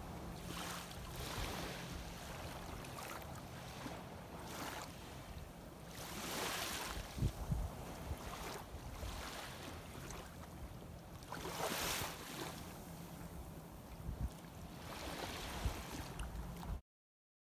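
Small waves washing in shallow sea water, with gusts of wind on the microphone. The sound swells and falls every few seconds over a faint steady low hum, then cuts off near the end.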